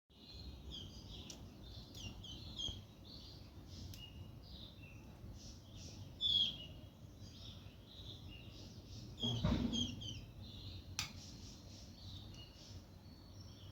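Small birds chirping continuously, many quick high-pitched chirps overlapping, over a low background rumble. About nine and a half seconds in there is a brief louder thump.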